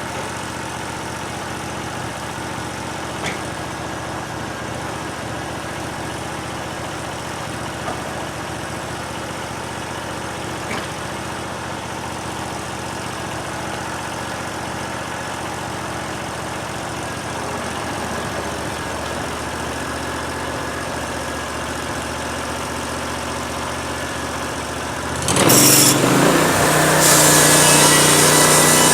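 Portable band sawmill's engine idling steadily. About 25 seconds in it gets suddenly much louder and higher as the engine is throttled up and the band blade starts sawing, with a bright hiss over the engine.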